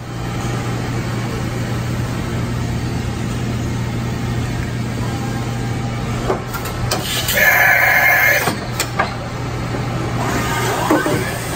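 A steady low hum from a CNC vertical mill and the shop machinery around it. A few sharp knocks come about six to nine seconds in, with a louder tonal blast in the middle of them. Rising whines follow near the end.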